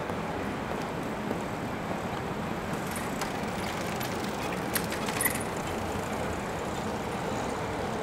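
Steady city street ambience with road traffic passing, and a few brief sharp clicks about five seconds in.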